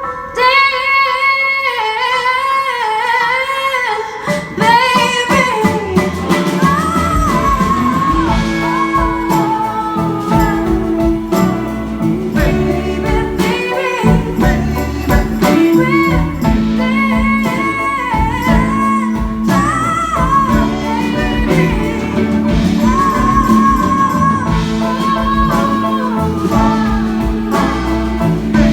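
A live band performing a song: a lead vocal sings almost alone at first, then about four seconds in the full band, with drums, bass, guitars and keys, comes in and plays on under the singing.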